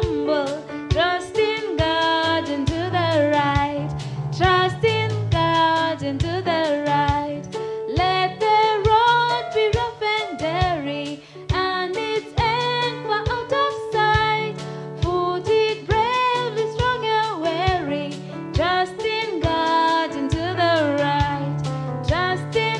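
A woman singing a children's worship song into a handheld microphone over backing music with a steady beat.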